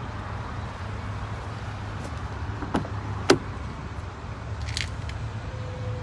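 Pickup truck's rear door latch clicking open: a faint click, then a sharp loud one about half a second later, a little past halfway in. A steady low rumble runs underneath.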